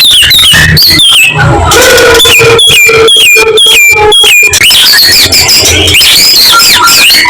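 White-rumped shama (murai batu) singing a loud, varied whistled song, with a run of about six quick repeated falling notes in the middle and a low buzzy note beneath them.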